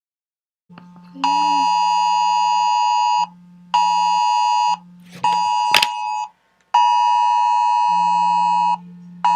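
Emergency alert attention tone in the Wireless Emergency Alert rhythm: one long tone of about two seconds, then two one-second tones with short gaps, starting over, in a buzzy tone with many overtones. A quieter low hum runs under parts of it, and there is a sharp click about halfway through.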